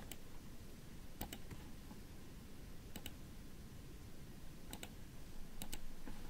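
Computer mouse buttons clicking: a few faint, sharp clicks a second or two apart, some in quick pairs, over a low steady room hiss.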